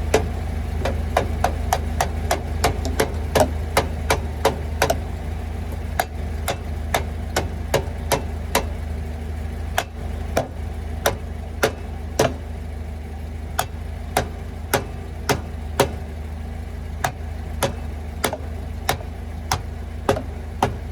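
A hammer striking a wire wheel's knock-off spinner over and over to tighten it. The strikes come about four a second for the first five seconds, then slow to roughly one a second, over a steady low hum.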